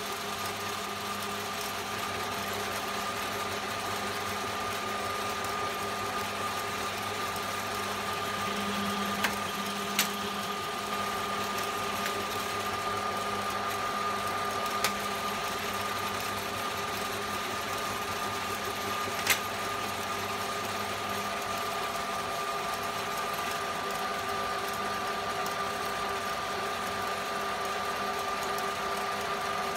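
Old Hahn & Kolb metal-turning lathe running steadily with a constant whine, broken by four short, sharp clicks.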